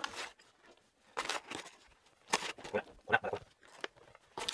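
Foil pouch crinkling and a small measuring spoon scooping powdered milk, in a string of short rustles.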